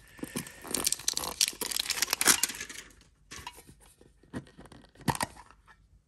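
A small metal Pokémon card tin being handled and pried open by hand. About three seconds of busy crackling and scraping are followed by scattered light clicks as the lid comes off.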